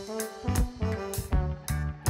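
Background music with a steady drum beat and sustained pitched instrument notes.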